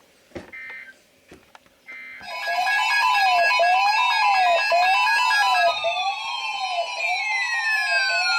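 Three short bursts of EAS data tones about a second apart, the end-of-message signal of a weather radio alert. Then a loud electronic siren-like wail begins, its pitch rising and falling about once a second over steady higher tones, with falling tones sweeping down near the end.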